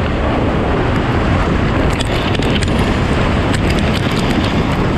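Heavy wind buffeting an action camera's microphone on a fast-moving snow tube, with snow spray hitting the camera in scattered sharp ticks from about two seconds in.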